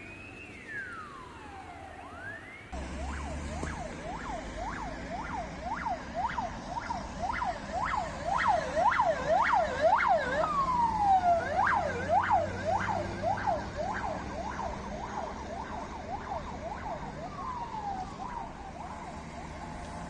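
A Ford Transit ambulance siren wails in slow rising and falling sweeps. After a cut about three seconds in, a Škoda Octavia road-police car's siren yelps fast, about three sweeps a second, loudest in the middle, with a slow falling wail sweep twice. Traffic rumble runs underneath.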